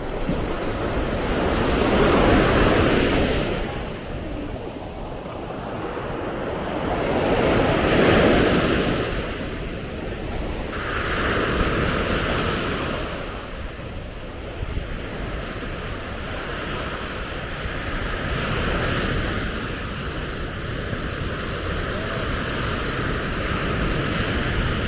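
Sea waves breaking and washing up the beach, swelling and falling away in surges several seconds apart, the loudest two near the start, with wind buffeting the microphone.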